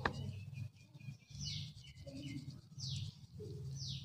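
Flour being sifted through a steel mesh sieve into a steel plate, a soft low rustle coming in patches as the sieve is shaken, with a sharp click at the very start. Short falling chirps, like a bird calling, repeat about once a second over it.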